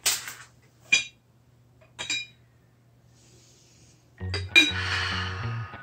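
Ceramic teapot and its lid clinking: a sharp knock, then two short ringing chinks about a second apart. Background music comes in about four seconds in, with one more clink just after.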